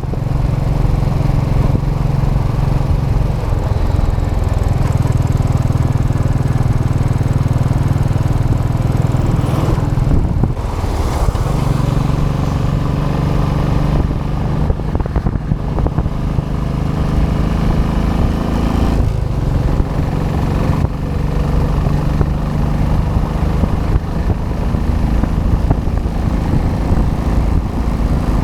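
Royal Enfield Classic 500 EFI's single-cylinder engine with its stock exhaust, running steadily under way. The engine note changes briefly about ten seconds in and again a little before twenty seconds.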